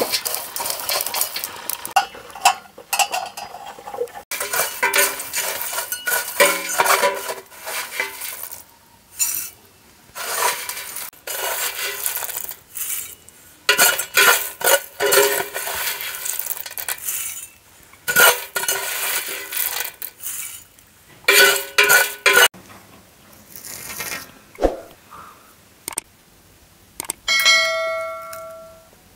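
Metal spatula scraping and stirring sunflower seeds in a large metal cooking pot: repeated scrapes and rattling strokes with short pauses. Near the end, a short chime rings once.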